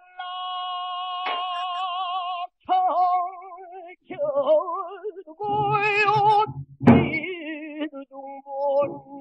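Pansori singer holding long notes with wide, heavy vibrato, the pitch sliding between phrases, with a low stroke on the buk barrel drum about seven seconds in.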